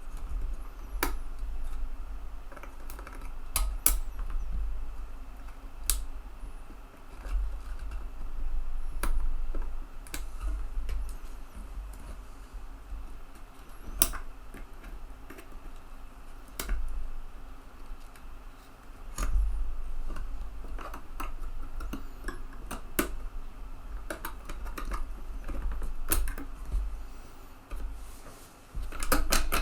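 Irregular small clicks and light clatter from handling the metal and plastic parts of a 3.5-inch floppy drive mechanism and small tools, over a low handling rumble and a faint steady hum.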